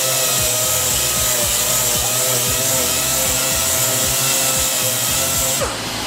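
Pneumatic air sander running steadily with a high airy hiss as it sands rust off the hub face of a brake rotor. It shuts off near the end and winds down with a short falling whine.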